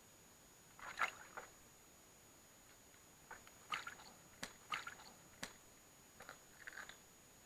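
Scattered small splashes and drips of water in a container holding live bait fish, with two sharp clicks in the middle.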